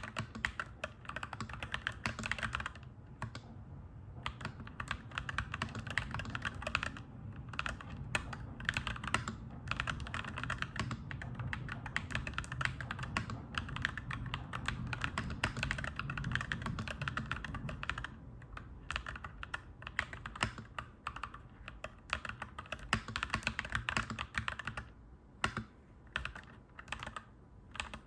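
Clacky mechanical keyboard being typed on fast, in runs of keystrokes broken by short pauses. A low rumble runs underneath for much of the time and fades near the end.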